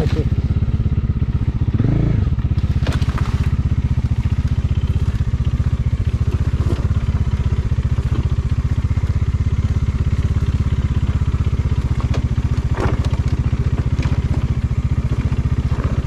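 Motorcycle engine running at a steady, even pace, with a couple of sharp clicks about three seconds in and again near thirteen seconds.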